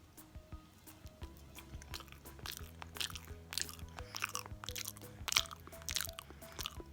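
Crunchy chewing: a person biting and munching something crisp, with many irregular crunches over a steady music bed.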